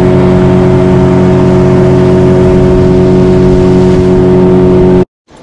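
Small boat's outboard motor running at a steady high speed, its drone unchanging, with wind and water rushing loudly over it. The sound cuts off abruptly near the end.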